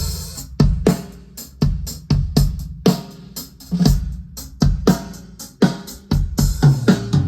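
Acoustic drum kit being played for a sound check. Single hits on the bass drum and the other drums each ring out deeply, at about one or two hits a second, and come closer together near the end.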